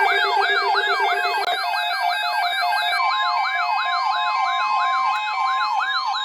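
Electronic emergency-alert siren tone: a fast sweep rising and falling about three times a second, layered over steady and stepping electronic beeps. A low buzzing pulse drops out about a second and a half in, and a steady held tone joins about halfway through.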